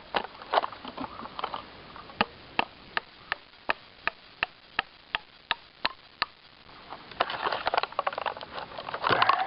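Hammer driving nails into a tree trunk: a steady run of sharp taps, about three a second, after a few irregular blows, then denser scraping and rustling near the end.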